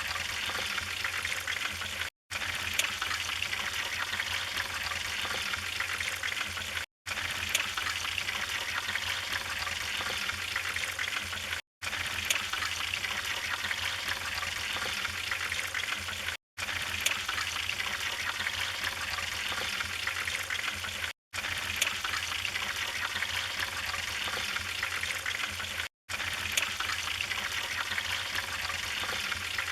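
Wood fire in a fireplace burning, a steady hiss with frequent small, sharp crackles. The sound breaks off for a split second about every five seconds.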